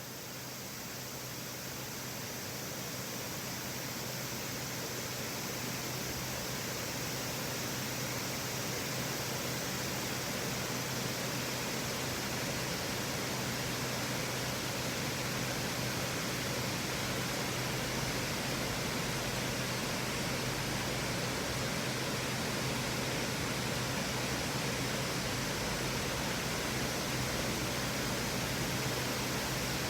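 Clear mountain river rushing steadily, an even water roar that fades in over the first few seconds.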